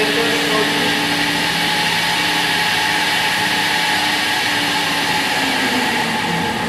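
Electric motor of an aircraft electrical-system training bench running with a loud, steady whine. Near the end its tones waver and fall as it begins to wind down while the system is switched off.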